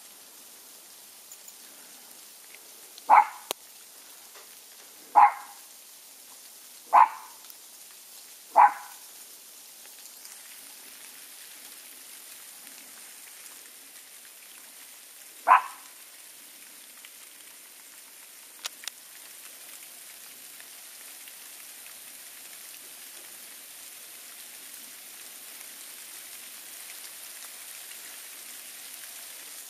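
A small dog barking five times, four single barks a couple of seconds apart and then one more several seconds later, over a steady fine hiss of sleet falling on dry leaves.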